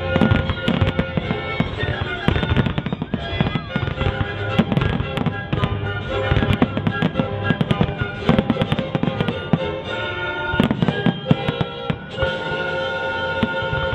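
Fireworks going off in rapid succession, many sharp bangs and crackles, with music playing along; the bangs thin out near the end while the music carries on.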